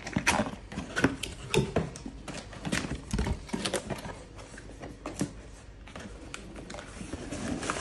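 Cardboard packaging being handled: a printed outer sleeve slid off a box and the brown inner box's lid lifted open, with scraping and rustling of cardboard and a run of irregular knocks and taps.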